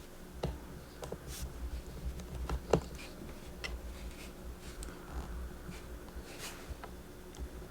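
Small irregular clicks and taps from a precision screwdriver working the tiny bottom-case screws of a 2012 MacBook Pro and the screws being set down, with one sharper tick a little before the middle.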